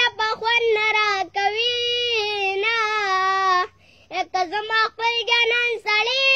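A young boy singing solo in a high voice, holding long wavering notes, with a short break a little past halfway.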